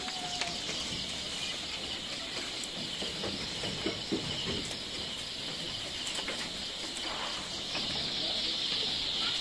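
Goats feeding on leafy branches in a pen: faint rustling of leaves and a few light scattered knocks, over a steady high hiss.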